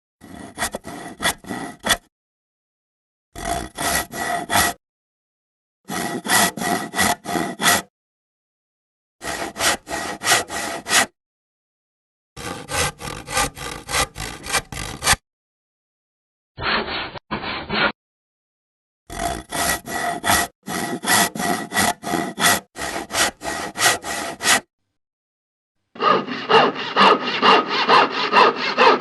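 Hand saw cutting wood, in a series of separate runs of back-and-forth strokes at about three strokes a second, with short silent gaps between them. One short run in the middle sounds muffled. The last run, starting near the end, is denser and without gaps between strokes.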